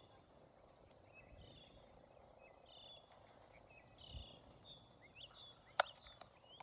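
A bird calling over faint outdoor background noise, a short high call repeated about every second and a half, with one sharp click near the end.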